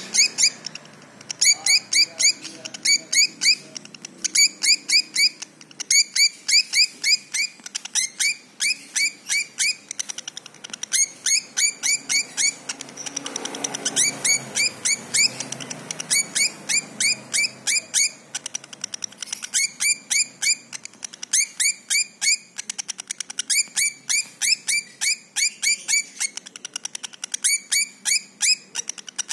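Fischer's lovebird singing in the rapid, stuttering style that Indonesian keepers call konslet. It gives runs of sharp, high chirps at about three to four a second, broken by short pauses.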